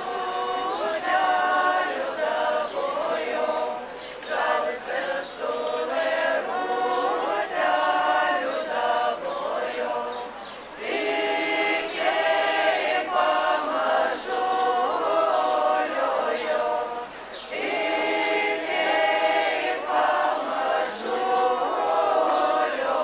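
Women's folk ensemble singing a Lithuanian folk song a cappella, several voices together, in phrases with short breaks about ten and seventeen seconds in.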